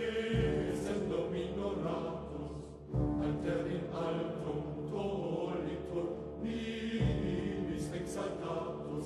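Background choral music: a choir chanting over sustained low notes, with a deep note entering about three seconds in and again about seven seconds in.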